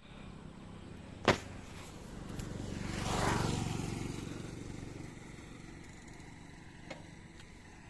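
Bottom bracket of a Montra Downtown bicycle creaking under pedalling: one sharp click about a second in and a couple of faint ticks near the end. In the middle, a passing vehicle's noise swells and fades.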